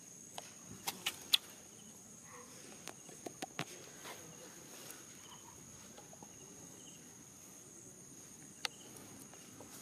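Faint, steady, high-pitched insect drone, typical of crickets, with a few sharp clicks: a cluster about a second in, another around three and a half seconds, and a single one near the end.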